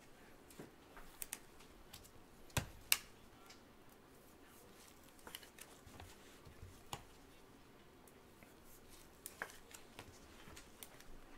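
Trading cards and card packs handled with gloved hands: a string of scattered light clicks and snaps, the two loudest close together about two and a half seconds in.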